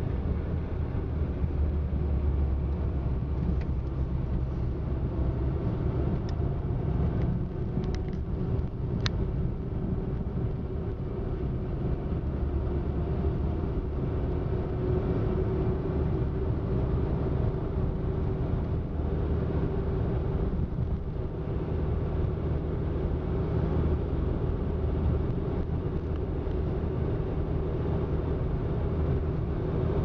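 Steady low rumble of a motor vehicle, with a few faint clicks about eight to nine seconds in.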